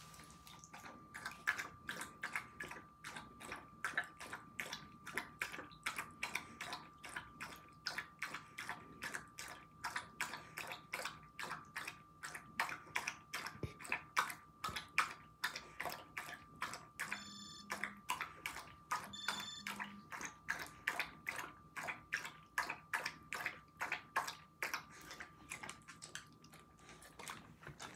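Dog lapping water from a stainless steel bowl, in a steady rhythm of about two laps a second.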